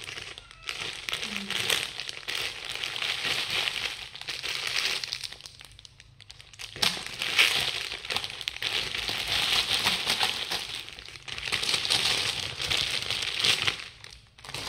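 Plastic bags of sweets crinkling as they are handled, torn open and emptied into a woven basket, in several stretches of rustling with a short lull about six seconds in.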